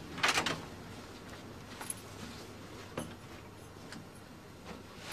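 Quiet room tone with a short scuffing noise just after the start and a few faint clicks. A door begins to bang shut right at the very end.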